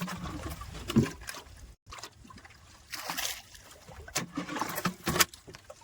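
Water splashing and trickling in irregular scoops and pours as it is bailed out of a leaking boat.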